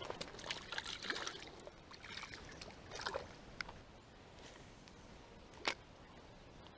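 Quiet small splashes and trickles of water mixed with handling rustles during the first three seconds or so, then a single sharp tap about five and a half seconds in.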